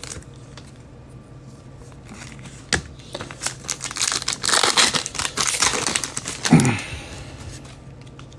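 Plastic wrapping of trading-card packaging being torn open and crumpled by hand: a single click, then a few seconds of dense crinkling and tearing, ending in a loud bump.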